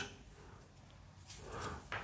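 Quiet room tone, with a faint soft rustle in the last half second.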